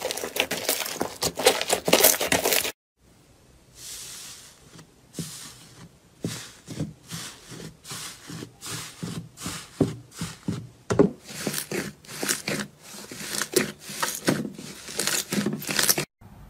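Slime being squeezed and stretched by hand, with dense crackling and popping. It cuts off suddenly about three seconds in, and a similar stretch of crackles and pops starts again, growing denser toward the end.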